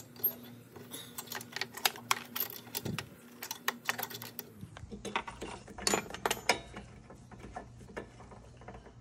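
Spark plug wrench loosening and drawing the spark plug out of a Briggs & Stratton lawn mower engine: a run of irregular metal clicks and clinks.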